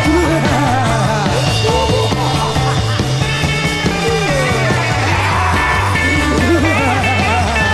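A 1960s rock record playing: singing over electric guitar and a bass line that steps from note to note.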